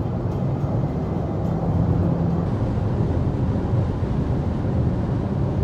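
Steady low rumble of a car travelling at highway speed, heard from inside the cabin: road and engine noise.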